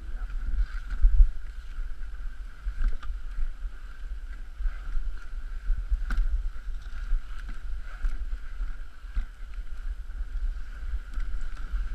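Dog sled running over snow: a steady rumble and hiss from the runners sliding along the trail, with wind buffeting the microphone and a few light knocks.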